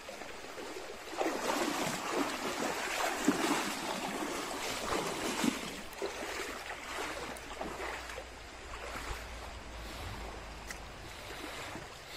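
Shallow creek's running water, with irregular rustling and handling noise as the phone is carried through streamside brush; louder bursts come in the first half.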